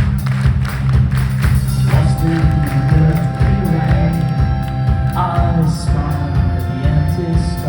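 A live pop-rock band playing, with heavy bass and a beat. From about two seconds in, sustained chords ring out and a voice sings over them.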